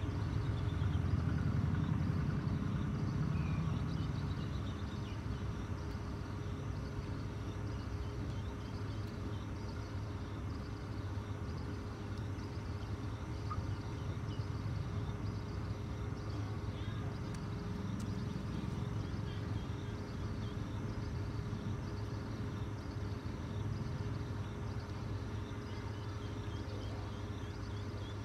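Steady low rumble with a faint continuous hum, loudest in the first few seconds, and a faint high chirp repeating a little more often than once a second.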